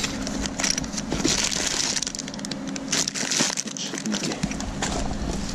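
A cardboard box being opened by gloved hands, its flaps and the plastic bag inside rustling and crinkling irregularly.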